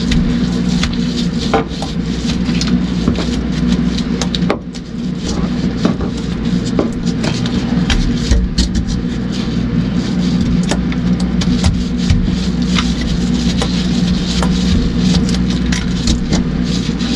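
A steady mechanical hum with a low rumble, broken by many scattered short clicks and knocks, and a brief dip in level about four and a half seconds in.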